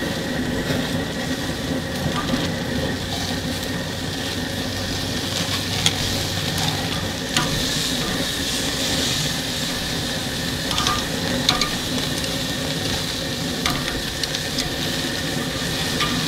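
Skirt steak sizzling on a hot charcoal grill grate. A few sharp clicks of steel tongs on the grate are heard as the steaks are turned.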